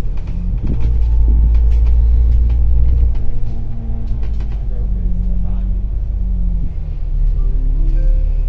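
Heard from on board, a bus's diesel engine rumbles steadily as it drives. A whine slowly falls in pitch in the middle, as it eases off.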